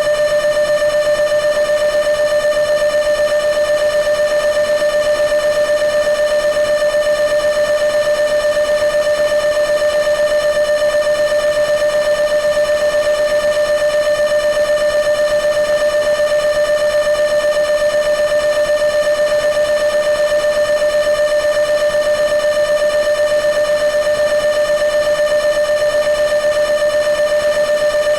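Arturia Buchla Easel V software synthesizer holding one steady tone with a bright set of overtones, its pitch never changing and its level flickering slightly and quickly.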